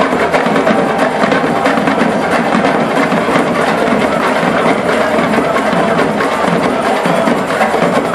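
Live percussion ensemble drumming together: djembes, large bass drums and other hand drums, in a dense run of close-spaced strokes at a steady level.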